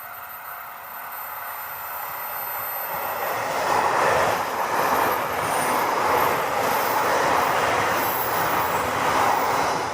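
A JR Hokkaido train passing a level crossing. Its noise builds over the first few seconds, stays loud with the run of wheels over the rails for about six seconds, and eases near the end. A steady ringing tone, typical of the crossing's warning bell, fades out at the start.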